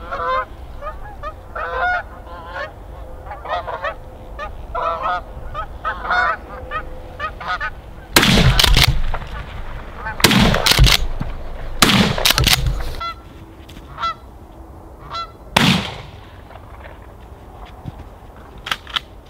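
Repeated goose honking, then about five loud shotgun blasts in quick succession over roughly eight seconds: 20- and 12-gauge shotguns fired at Canada geese coming in to decoys. A few more honks follow the shots.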